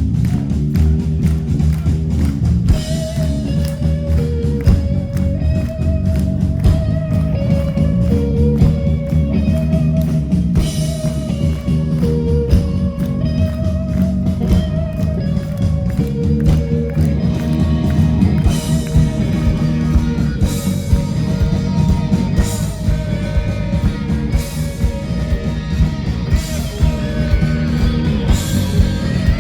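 Live rock band playing loudly: electric guitars, bass and drum kit, with a short melody line repeating over and over.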